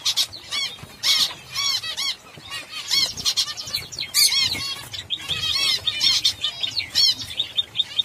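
Zebra finches in a colony calling: many short, repeated calls from several birds at once, coming in bunches about every second.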